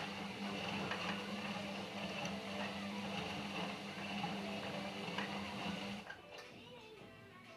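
Indesit narrow washing machine running, a steady motor hum with water sloshing in the drum, which stops abruptly about six seconds in.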